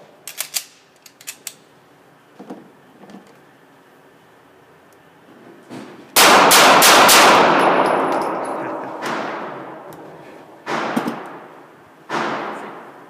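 Pistol shots echoing in an indoor shooting range: a quick string of about five shots some six seconds in, then two single shots near the end, each with a long ringing tail. A few light clicks of gun handling come first.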